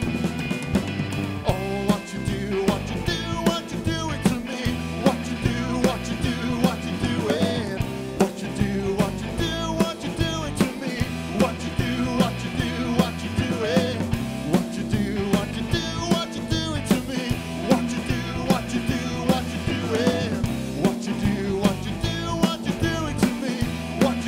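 Live rock band playing an instrumental break: electric guitar lines with bent notes over a steady drum-kit beat and bass.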